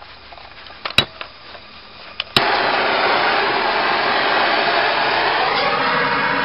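Two sharp clicks, then about two and a half seconds in a propane torch grill starter lights with a sudden pop and runs with a loud, steady rushing hiss.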